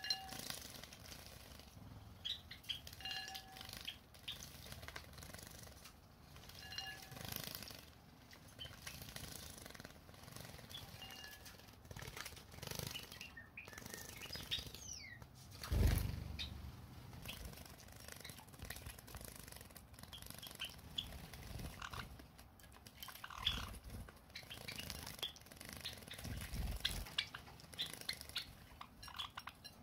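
Java sparrows bathing in shallow dishes of water: splashing and fluttering wings in quick bursts, with a few short chirps. One louder low thump about halfway through.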